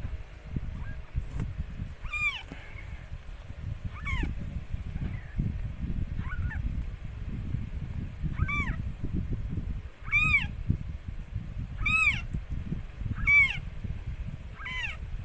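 Newborn kittens mewing: about nine short, high-pitched cries that rise and fall in pitch, a second or two apart and louder in the second half, over a constant low rumble.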